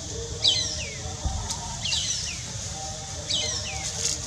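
A bird calling: a short call of quick falling whistles, repeated evenly about every second and a half, over faint music.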